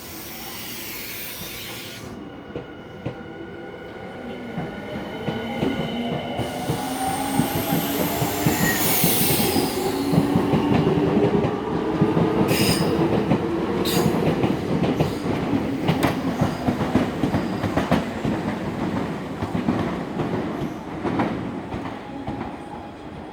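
Semboku Rapid Railway 7020 series electric train pulling away from the platform. Its traction motors give a whine that rises in pitch as it speeds up and grows louder. Then the wheels knock over the rail joints in a run of clacks as the cars pass.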